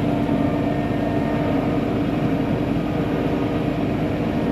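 ULV mosquito fogger's small engine and blower running steadily at full output: a constant engine drone with a strong steady hum.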